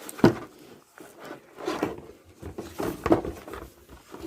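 Handling noise as a keyboard is taken out of its paper wrapping: paper rustling and light knocks, with one sharp knock just after the start the loudest.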